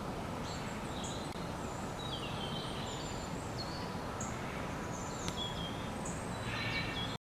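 Birds chirping and calling, with many short high chirps and quick falling notes, over a steady background hiss. The sound cuts off abruptly near the end.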